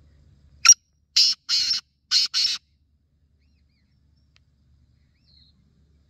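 Male black francolin calling: a short opening note followed by four loud grating notes in two pairs, over about two seconds. This is the species' territorial call.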